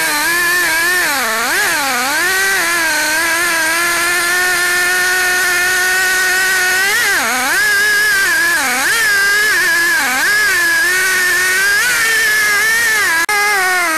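Stihl two-stroke chainsaw running at full throttle while cutting into a red oak log. The engine pitch dips and recovers several times as the chain bites into the wood under load, and holds steady in between. The sound drops out for an instant near the end.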